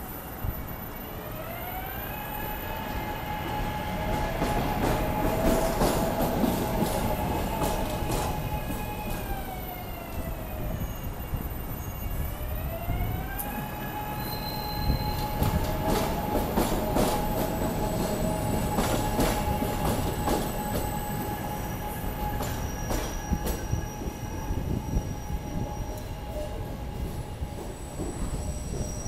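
SEPTA Market-Frankford Line el train pulling out of the station: whining tones that rise, hold and drop away twice over a rumble, with sharp wheel clicks and squeals on the rails.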